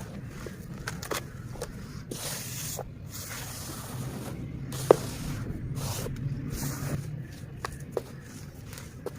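Red dirt crumbling and breaking apart in water: scattered soft crackles and small splashing sounds, with one sharp crack about five seconds in.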